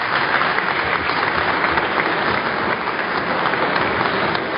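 A group of people applauding, steady clapping after a speech.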